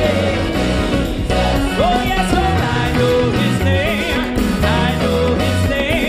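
Live gospel praise music: a band with bass and drums playing a steady beat under lead and backing singers.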